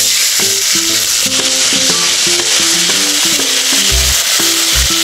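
Wet ground spice paste of ginger, garlic, cumin and garam masala sizzling loudly in hot mustard oil in a kadai as it is fried and stirred for a dal tempering. The sizzle starts suddenly as the paste hits the oil, with a few low knocks near the end.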